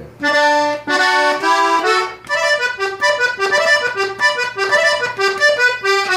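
Hohner Compadre diatonic button accordion playing a norteño-style passage: a few held chords for about the first two seconds, then a quick run of short melody notes over alternating bass notes.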